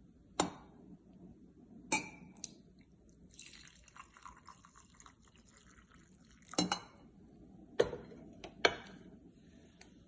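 Glass coffee-maker carafe and cups clinking sharply as they are picked up and set down, five times. In the middle, a couple of seconds of coffee being poured.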